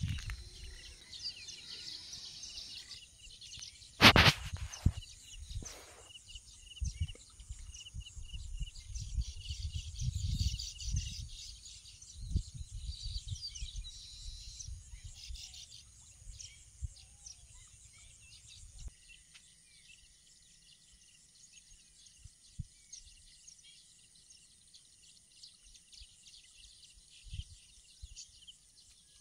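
Outdoor ambience of birds and insects chirping, with a low rumble through the first two-thirds. A single sharp knock about four seconds in is the loudest sound, with a smaller one about two seconds later. The rumble drops away for the last third.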